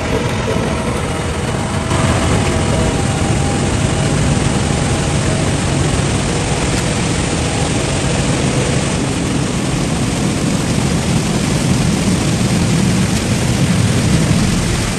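JCB backhoe loader's diesel engine running steadily as the machine drives through shallow river water, with water splashing around it. It gets louder about two seconds in.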